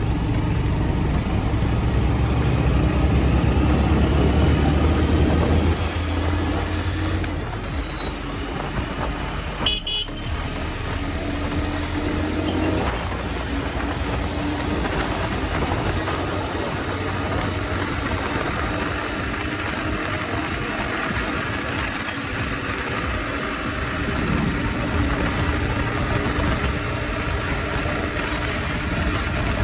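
Hero Xtreme 125R's single-cylinder engine running under way, with wind and road noise in the moving traffic. The engine is loudest for the first six seconds and then eases. A vehicle horn toots briefly about ten seconds in.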